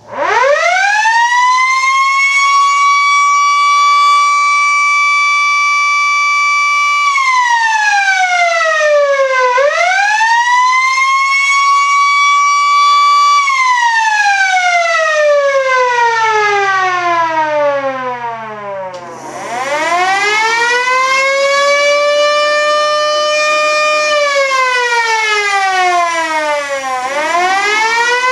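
Electromechanical outdoor warning siren winding up to a steady wail within a second. It drops and rises once, then winds down over several seconds. About 19 seconds in, a siren winds up again, holds a steady wail, falls and starts to rise once more near the end.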